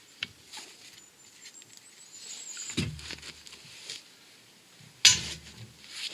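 Workbench handling noises of parts and tools: light clicks and taps, a knock just under three seconds in, and a louder short clatter about five seconds in.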